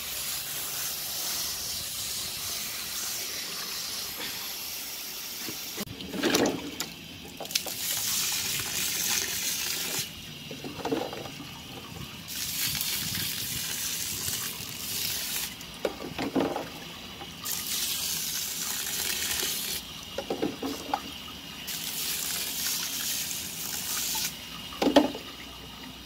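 A hose's stream of water pouring and splashing onto a basket of decomposed granite grit, a steady hissing wash that comes in louder spells, broken by a short thump roughly every five seconds. Muddy water is still rinsing out of the grit.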